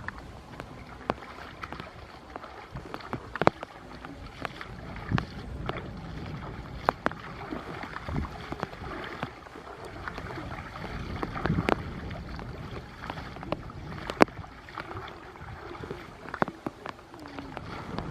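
Irregular knocks and clicks over a steady wash of water noise, like a small boat being worked on the water.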